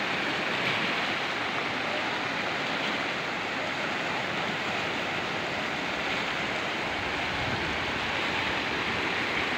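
Steady rushing of a muddy river in flood, its fast, swollen current churning after heavy rain.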